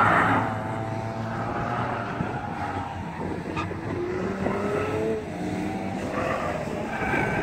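Car engines revving hard through a cone course, with tyre squeal dying away in the first half second and the engine note rising in pitch around four to five seconds in. A fainter tyre squeal returns near the end as a car slides.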